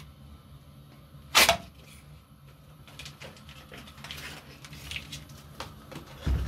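Handling of a foil-lined butter wrapper as a pat of butter is dropped into an empty nonstick frying pan, with one short, sharp sound about a second and a half in and a few faint clicks after.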